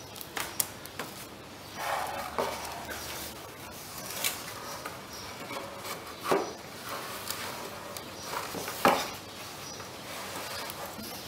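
Homemade 2x4 ballista being handled and loaded: wood knocking and rubbing on wood, about half a dozen light knocks with short scrapes between them, the loudest knock near the end.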